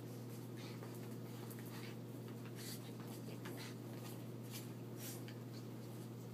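Faint, irregular scuffling and scratching of small dogs' paws and bodies on carpet as they play-wrestle, over a steady low hum.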